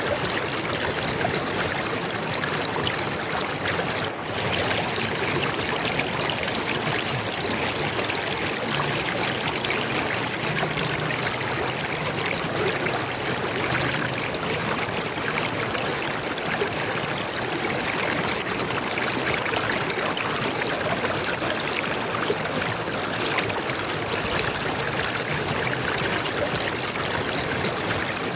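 Stream water running and trickling steadily, with a brief drop in level about four seconds in.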